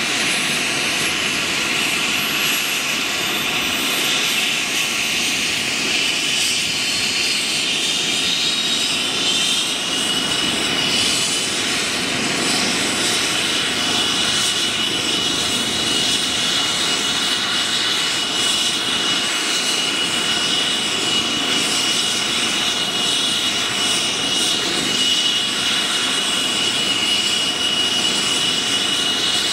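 Airbus EC135 air-ambulance helicopter running on the ground with its main rotor turning: a steady turbine and rotor noise under a high whine that rises in pitch for about the first ten seconds, then holds steady as the twin turbines wind up.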